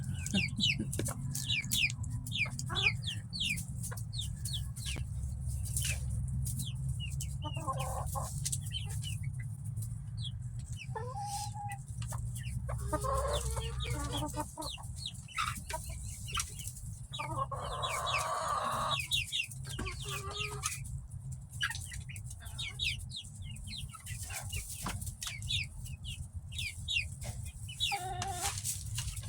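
Backyard chickens clucking and calling, with many short high chirps throughout and a steady low hum underneath.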